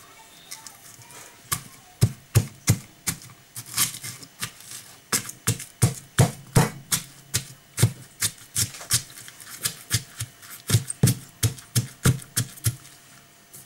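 Stone pestle pounding onions and green peppers in a stone mortar: a run of irregular knocks, roughly three a second, after a short pause at the start.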